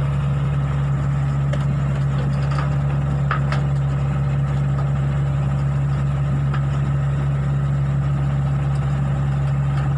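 Diesel engine of a Hitachi Zaxis 48U mini excavator running steadily with a constant low hum while the machine maneuvers on a flatbed truck's loading ramps.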